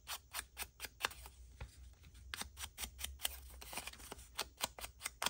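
Round foam ink blending tool dabbed and swiped along the edges of a paper ticket: quick, scratchy strokes about three or four a second, with a short pause around the middle.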